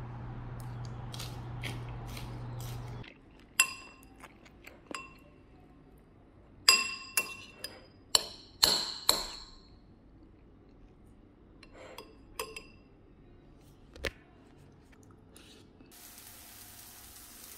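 Metal spoon clinking against a white ceramic bowl while stirring food, a series of sharp ringing clinks after a steady low hum at the start. Near the end the steady hiss of eggplant slices frying in a pan begins.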